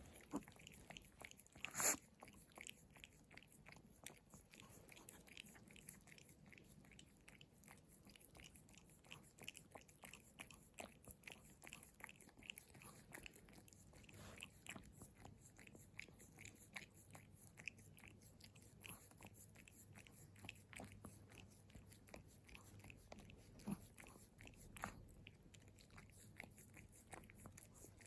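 Pomeranian licking bare feet: faint, close wet mouth clicks and smacks, several a second, with a louder one about two seconds in.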